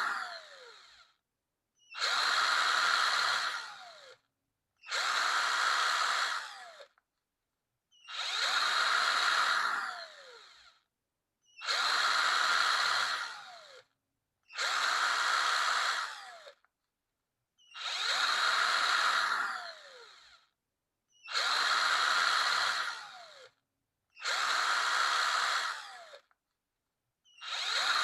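Power drill triggered in repeated short runs, about nine in all, each lasting about two seconds with silence between. Each run holds a steady whine and ends with a falling whine as the motor winds down.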